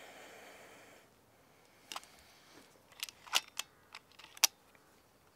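FX Impact MkII air rifle's side-lever action being worked by a gloved hand: a brief rustle, then a run of sharp metallic clicks and clacks, the loudest near the end.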